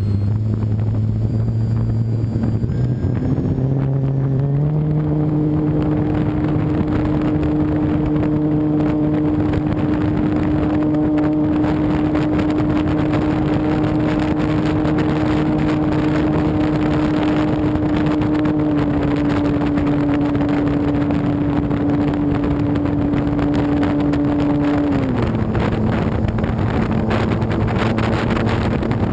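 Electric RC plane's Turnigy Park 480 brushless motor and propeller whining steadily, with air rushing past an onboard camera. The pitch steps up a few seconds in as the throttle is opened, drops about 25 seconds in as it is eased back, and starts rising again near the end.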